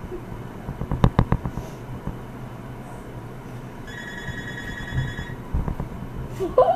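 A few sharp knocks about a second in, then a phone rings once in the middle: an electronic trill lasting about a second and a half.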